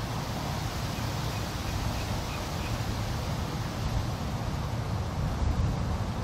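Outdoor ambience dominated by wind buffeting the microphone, an uneven low rumble, over a steady background hiss.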